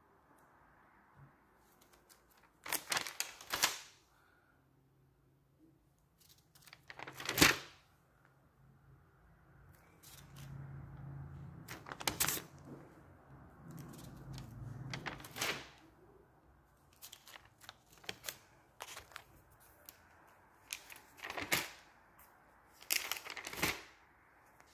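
Spiral notebook pages being handled and turned: a series of short paper rustles, about ten spread through the stretch, with quiet gaps between.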